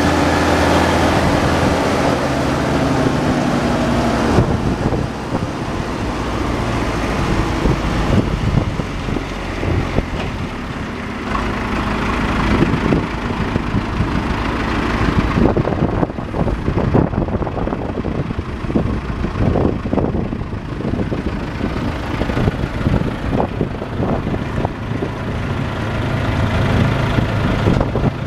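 Morbark Tornado 13 wood chipper's engine running steadily, its pitch falling over the first few seconds before settling. Irregular knocks and rustles come through over the middle stretch.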